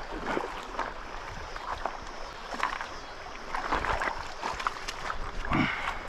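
Scattered, irregular knocks, taps and rustles of handling aboard a fishing kayak.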